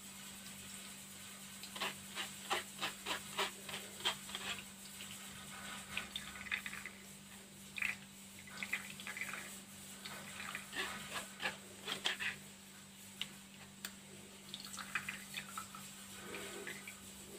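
A metal spoon pressing and scraping grated tomato pulp against a plastic mesh sieve, with irregular wet clicks and scrapes as the juice is strained out.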